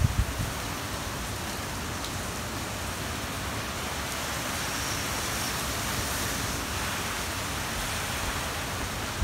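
Typhoon rain and wind making a steady, even rushing hiss. A sharp low thump of wind hitting the microphone comes right at the start.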